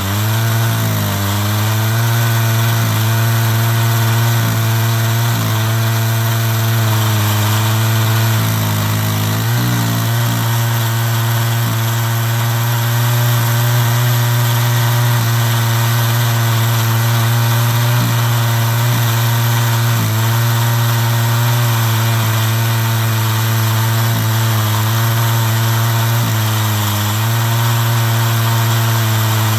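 Chainsaw on an Alaskan chainsaw mill running steadily under load while ripping a slab from a walnut log. Its pitch dips briefly a few times as the cut loads the engine.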